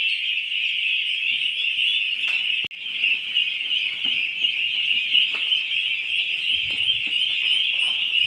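A large flock of Indian Runner ducklings peeping all at once, a dense, continuous high-pitched chorus that breaks off for an instant about two and a half seconds in.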